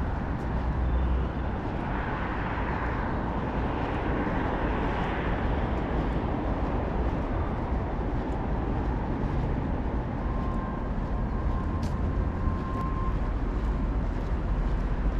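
Steady outdoor road-traffic noise, a low rumble with hiss that swells a little a few seconds in. A faint, thin, steady high note lasts a few seconds near the end.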